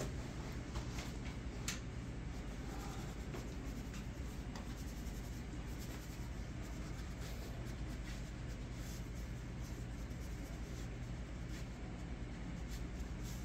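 Steady room noise: a low hum under an even hiss, with a few faint ticks.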